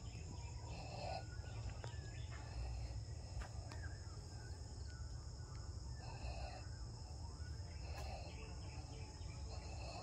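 Steady high-pitched chorus of insects chirring, with a low rumble underneath and a few faint short chirps.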